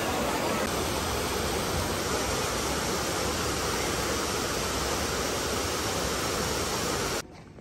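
Trevi Fountain's cascades: a steady, unbroken rush of falling water that cuts off suddenly near the end.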